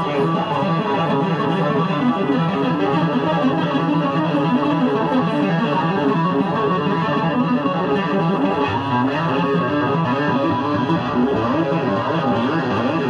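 Electric bass guitar played solo live: a fast, unbroken stream of notes.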